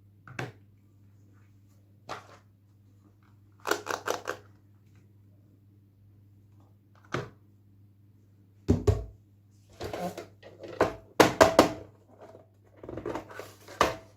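Toy packaging and doll pieces being handled: scattered clicks, taps and crinkly rustles at irregular intervals, coming thicker in the second half, over a steady low hum.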